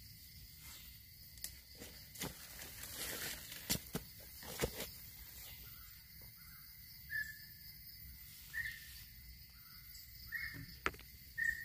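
Forest ambience: a steady high insect drone, with a bird giving a short call several times in the second half. A few sharp clicks and scrapes come from a knife digging mushrooms out of the soil and leaf litter.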